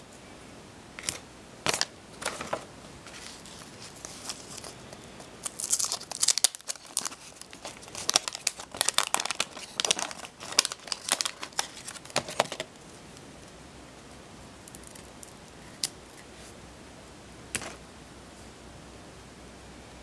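Wax-paper trading-card pack torn open and crumpled by hand: a few sharp crackles at first, then a dense run of crinkling and tearing from about five seconds in to about twelve, then only a couple of faint ticks as the cards are handled.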